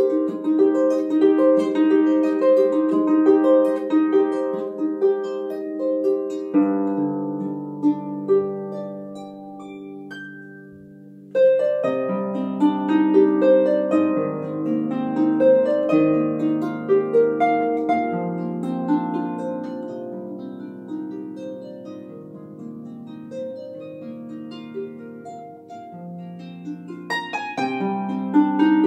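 Solo harp played by plucking: quick repeated notes at first, then a quieter stretch of ringing chords, with a louder passage over low bass notes coming in suddenly about 11 seconds in and a rapid flurry of notes near the end.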